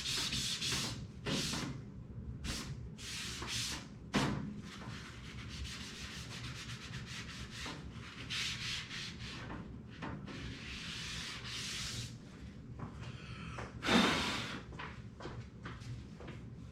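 Repeated rubbing strokes on the surface of a PC case, wiping at white residue on it. There is a knock about four seconds in and a louder thump about fourteen seconds in, as the case is handled.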